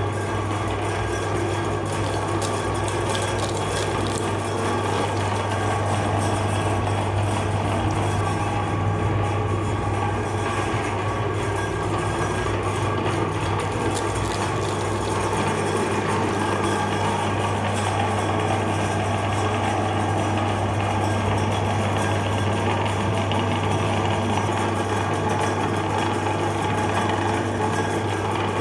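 Electric meat grinder running steadily, its motor giving a constant hum with a whirring, grinding noise over it.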